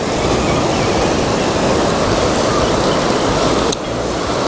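Surf washing over shoreline rocks: a steady rush of moving seawater that dips briefly near the end.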